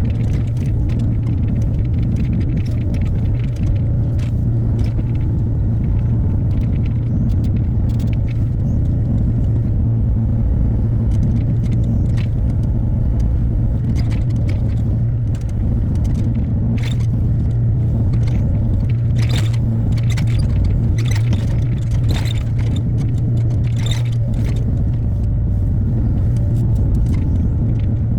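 Hyundai HX60A mini excavator's diesel engine running steadily with a low hum, with frequent short scrapes and knocks from the work, more of them in the second half.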